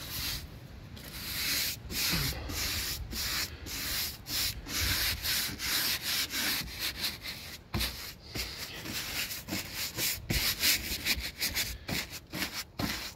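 Paintbrush scrubbing wood treatment onto rough timber cladding in repeated back-and-forth swishing strokes, about two a second.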